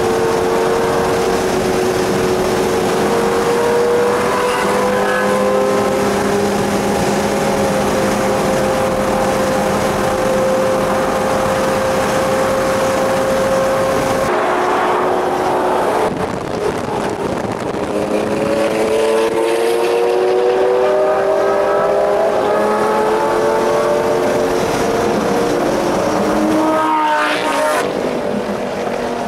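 Car engine droning at highway speed, heard from inside a car: a steady engine note, then after a cut the pitch rises as the engine accelerates, with a short break in the sound near the end.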